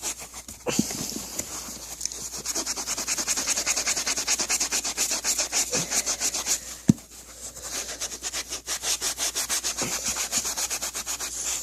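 A wet magic eraser (melamine foam sponge) scrubbing a sneaker in rapid back-and-forth strokes, several a second, to lift dirt and scuffs. A few light knocks come between strokes.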